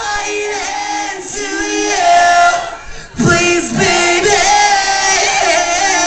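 Concert crowd singing along together with the band's drums and bass dropped out, a mix of male and female voices. The singing breaks off briefly about three seconds in, then carries on.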